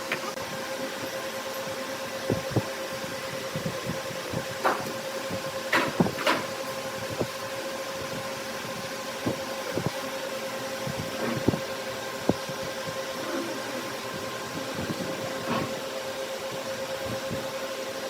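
Wood lathe's electric motor running with a steady hum, with scattered light knocks and clicks.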